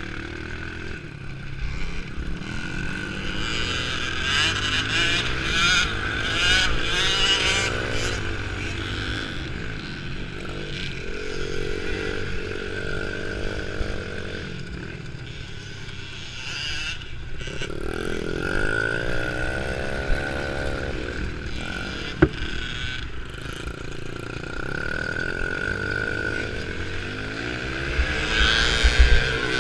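Two-stroke 65cc motocross bike engine being ridden hard, revving up and falling back over and over as the throttle opens and closes and the gears change, with other small dirt bikes running nearby. A sharp knock comes about two-thirds of the way through, and heavy low buffeting near the end.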